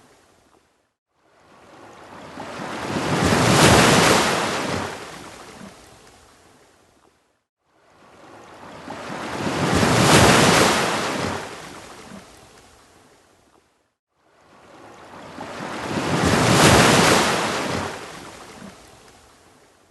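Ocean waves breaking on a beach: three waves, each swelling up to a crash and then washing out over a few seconds. They come about every six and a half seconds, with a moment of silence between each.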